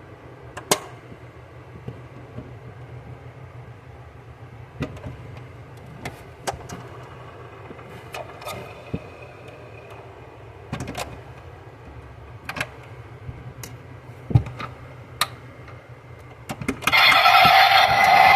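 Scattered light clicks and taps from a 1:18 Bugatti Chiron model being handled. Near the end, the model's built-in sound module starts a loud electronic engine sound effect through its small speaker.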